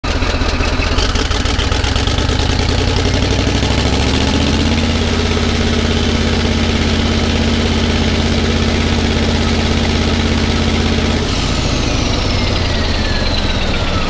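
Caterpillar D11 bulldozer's twin-turbo diesel running loud through straight-piped exhausts. It revs up about four seconds in, holds high revs, then is throttled back about eleven seconds in, with a high turbo whine falling away.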